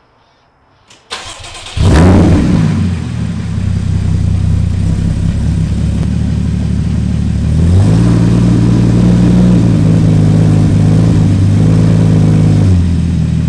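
Cold start of a 2014 Porsche 981 Cayman S's flat-six through a Fabspeed Super Cup race cat-back exhaust (stock headers and cats). The starter cranks briefly about a second in, and the engine catches with a loud flare, then settles into a loud, steady fast cold idle. Near the middle the idle speed steps up and holds, then drops back down near the end.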